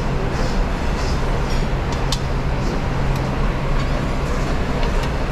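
Steady roar of a restaurant kitchen line at a charcoal-fired grill, with a low hum underneath, and a few sharp clinks of metal tongs on the grill rack.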